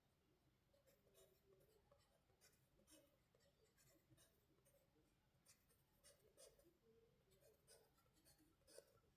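Near silence with faint, irregular scratching and light ticks.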